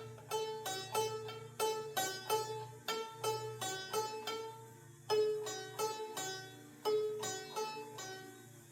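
Homemade plucked-string instrument being played: a steady run of sharp plucked notes, about two or three a second, each ringing out and fading, over a steady low hum.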